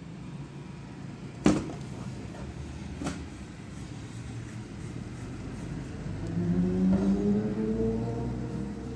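A motor vehicle engine passing by, growing louder with its pitch slowly rising in the last few seconds, over a low steady rumble; a sharp knock about a second and a half in and a lighter one a second and a half later.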